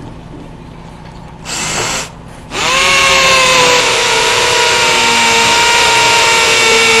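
A power drill gives a short burst about a second and a half in, then runs loud and continuously from about two and a half seconds on, with a steady whine.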